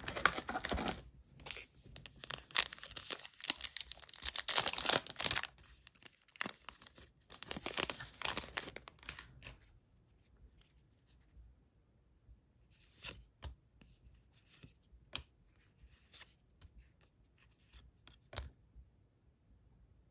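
Foil booster-pack wrapper being torn open and crinkled in the hands for the first nine seconds or so, followed by a few scattered light clicks and taps as the cards are handled.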